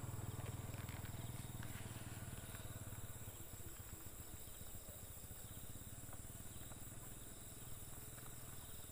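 Low rumble on a handheld microphone, strongest in the first few seconds and then fading, with a faint steady high hiss behind it.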